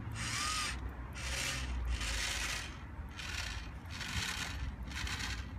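Toy tower crane's electric motor mechanism working in short, regular noisy bursts, about one a second, while it hoists a pipe slung on chains.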